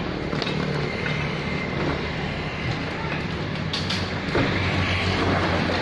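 Komatsu PC78UU excavator's diesel engine running steadily, with scattered knocks and clatter over it.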